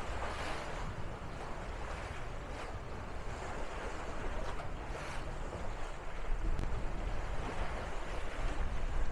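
Water rushing and splashing along the hull of a sailing trimaran under way, in several brief surges, with wind rumbling on the microphone. It grows a little louder after about six seconds.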